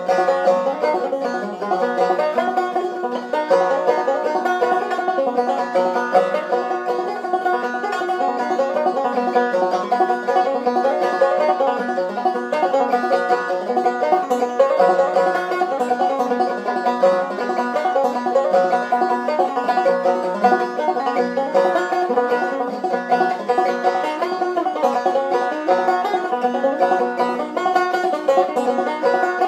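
Banjo played clawhammer style: a steady run of down-stroked plucked notes in a continuous, even tune.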